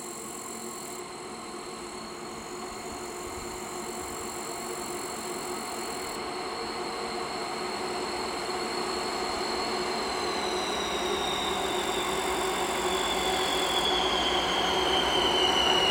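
2TE116 twin-section diesel locomotive approaching under power with a freight train. Its diesel engines run steadily and grow louder as it nears, with a high whine that starts falling in pitch about two-thirds of the way through.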